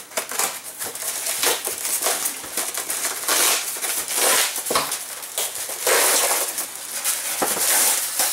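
Unpacking noise: packing tape slit with a small wine-opener blade, then a polystyrene foam packing insert and the plastic-wrapped lid pulled free, giving an irregular run of scraping, rubbing and crinkling that grows louder about three seconds in.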